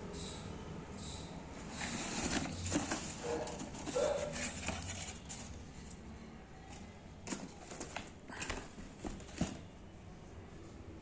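A shoebox and its packaging being handled: scattered rustles, taps and scrapes, busiest in the middle and thinning out near the end.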